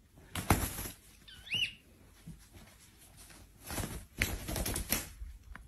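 Small parrot's single short chirp that rises and falls, about a second and a half in, set among rustling and soft pats of movement on fabric: one rustle near the start and a quick run of them about four seconds in.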